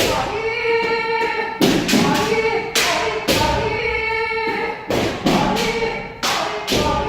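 Kendo practitioners' drawn-out kiai shouts, each held on one pitch for about a second, repeating, with sharp thuds of stamping footwork and strikes between them during a footwork and stamina drill.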